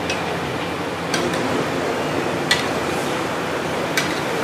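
Steady kitchen hiss broken by four sharp clinks of metal utensils, spread about a second or more apart.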